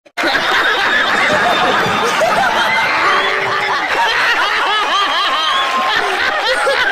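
A group of people laughing together, many voices overlapping in continuous chuckles and snickers; it starts abruptly.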